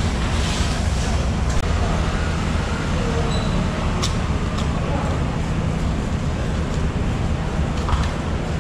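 Steady low rumble of vehicle traffic, with two sharp clicks about four seconds in.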